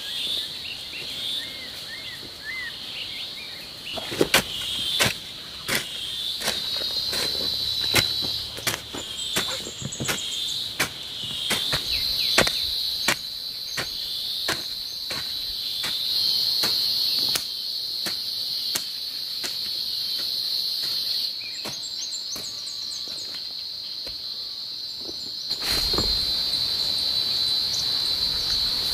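A steady high insect drone over repeated irregular knocks and scrapes of a garden hoe chopping and pulling soil, the strikes thickest in the middle stretch.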